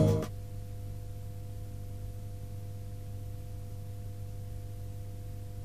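Closing music cuts off just after the start, leaving a steady low hum with two faint higher steady tones and light hiss.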